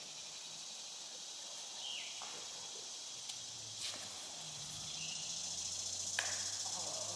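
Outdoor ambience dominated by a steady, high-pitched insect chorus that swells toward the end, with a few short falling chirps, a low steady hum coming in about three seconds in, and one sharp click a little after six seconds.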